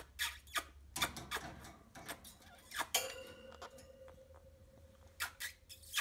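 Small pet parrot giving short, sharp squeaks and clicks while it takes food through the cage bars, in groups: several in the first second and a half, more about three seconds in, and a few near the end. A faint steady tone runs under the second half.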